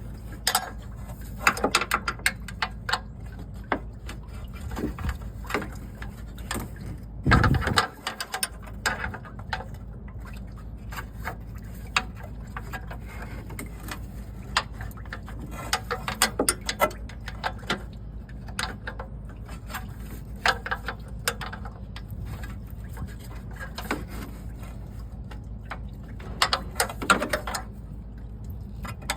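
A wrench clicking and clinking against metal as the line nuts on a car radiator are loosened. Scattered short metallic clicks come throughout, with one heavier thump about seven seconds in.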